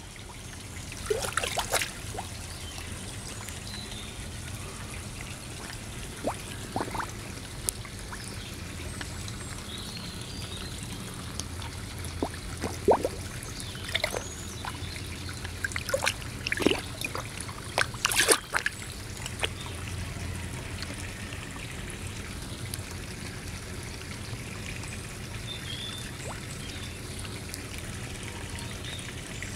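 Koi pond water trickling steadily over a low hum, with irregular small splashes and slurps at the surface where koi mouth at the water's edge, a dozen or so scattered through the stretch.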